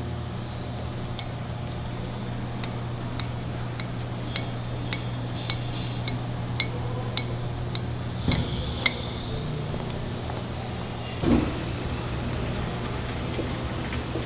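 Hand-crank tilt discharge of a Champion single-arm sigma blade mixer being turned to tilt its stainless steel mixing chamber: a light metallic click about every half second over a steady low hum. A louder thump comes about eight seconds in, and another, the loudest, about eleven seconds in.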